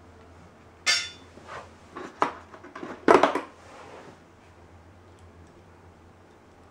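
Small metal heat gun accessories clinking and clattering as they are handled in a plastic tool case: a scatter of knocks from about one to four seconds in, loudest just after three seconds.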